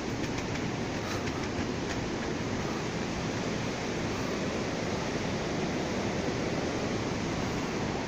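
Mountain stream rushing through a narrow rock gorge: a steady, even roar of water. A few light footsteps on wooden boardwalk planks in the first couple of seconds.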